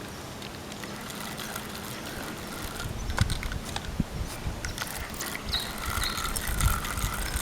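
Outdoor ambience with low rumbling, scattered sharp clicks and knocks, and a faint wavering high tone that comes in about two-thirds of the way through.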